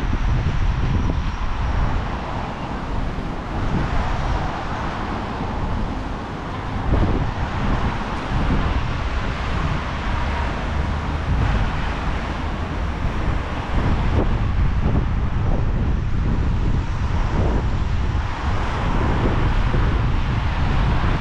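Wind buffeting the microphone: a dense low rumble that swells and eases.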